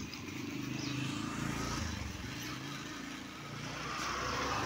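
A motor vehicle's engine running on the street, a low steady hum that swells about a second in and again near the end.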